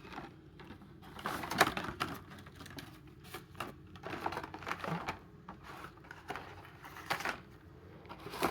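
Hot Wheels blister-carded packages being handled, the plastic blisters and card backs clicking and rustling in irregular bursts.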